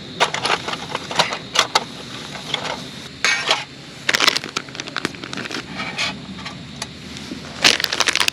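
Camp cookware being handled: a string of sharp clicks and knocks of metal on metal, with a few short rustling or scraping bursts.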